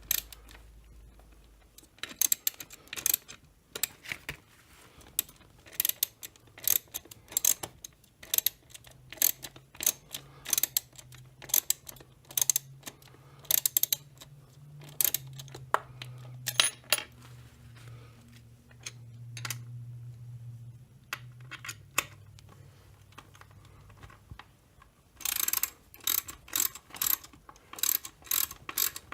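Hand ratchet with a 1/4-inch socket clicking in short irregular runs as chainsaw crankcase screws are run in, then ratcheting fast and continuously near the end. A faint low hum runs for a stretch in the middle.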